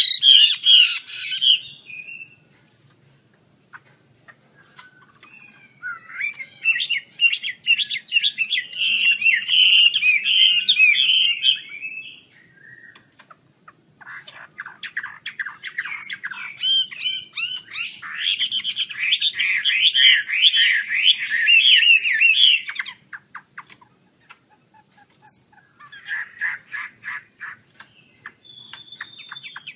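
Chinese hwamei singing in full voice: long bursts of rapid, varied, sliding notes, broken by pauses of a couple of seconds, with the loudest stretches about a third of the way in and again after the middle.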